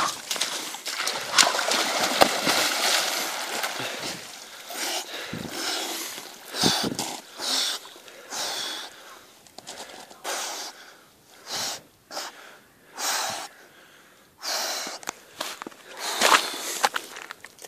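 A man plunging into an ice hole in a frozen lake: water splashing for the first few seconds, then loud, sharp breaths about once a second as he swims in the ice-cold water, the cold-shock breathing of a winter swim.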